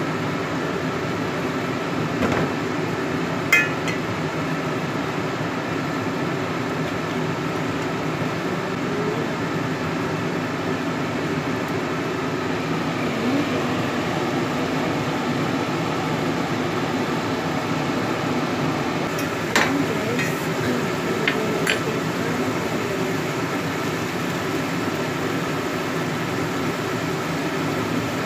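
A spatula and spoon knocking and clinking against a pan while pork adobo is stirred: a few sharp knocks about three seconds in and again around twenty seconds, over a steady mechanical hum.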